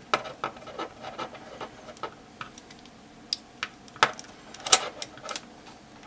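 Scattered small clicks and taps of a plastic GoPro handlebar mount and its thumbscrew being turned tight on a metal carabiner, with a few louder clicks about four to five seconds in.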